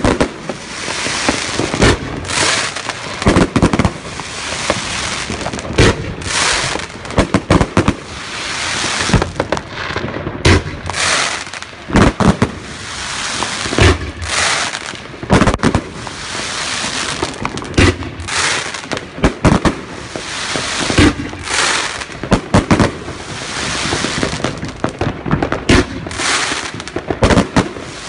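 A 125-shot fan-shaped fireworks cake (time rain willow with time rain mine and blue tail) firing in rapid succession: sharp reports come irregularly, one to several a second, over a continuous hiss from the burning effects.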